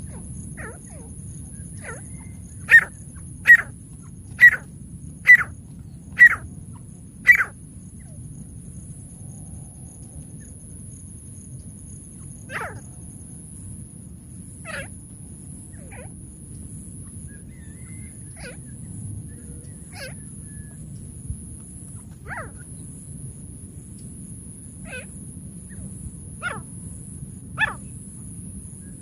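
Francolin (teetar) calling in short, sharp notes: six loud ones about a second apart a few seconds in, then scattered fainter notes every second or two. A steady high-pitched thin tone and a low rumble run underneath.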